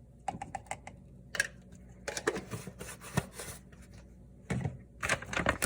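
Kitchen containers being handled: a quick run of light clicks, a sharp knock, then rustling and clattering knocks.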